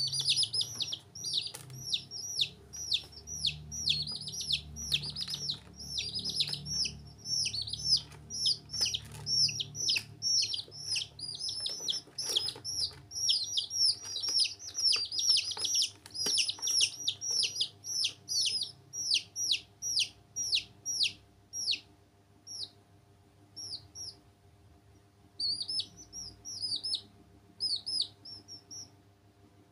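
Baby chicks peeping: a rapid run of high, downward-sliding cheeps, several a second, that thins to a few scattered peeps about two-thirds of the way through, with a short flurry near the end.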